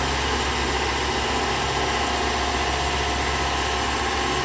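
Haas SL-20 CNC lathe spindle spinning its chuck steadily at 2000 rpm: an even machine whine with several steady tones over a running hum.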